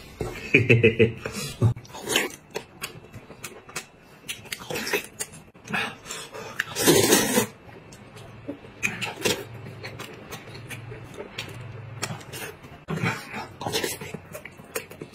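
A man eating hot and sour sweet-potato noodles with chopsticks: chewing and chopsticks clicking against the bowl, with one loud slurp about seven seconds in. Brief wordless voice sounds come near the start.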